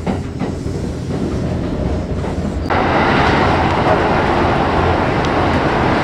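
Kintetsu electric train running noise heard from inside the car as it gathers speed out of a station: low rumble with a few wheel clacks over rail joints and points. About two and a half seconds in, a loud steady rushing noise suddenly sets in.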